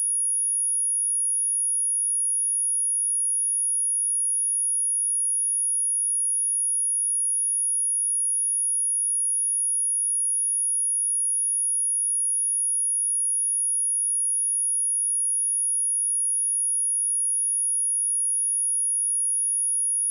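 A pure 10401 Hz sine-wave test tone, one high steady pitch held at a constant level. It is a speaker test tone of the kind played to check speakers and to shake water and dust out of them.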